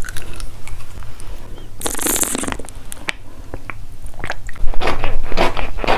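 Clear plastic dental aligners clicking and snapping as fingers pry them off the teeth, then crinkling and crackling of a plastic drink sachet being handled. There is a short burst of rustling about two seconds in, and the crackling is loudest and densest in the second half.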